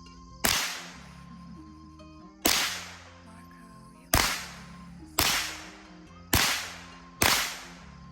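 Six shots from a .22 LR pistol, fired singly at an uneven pace of one every one to two seconds, each crack followed by a short echoing tail.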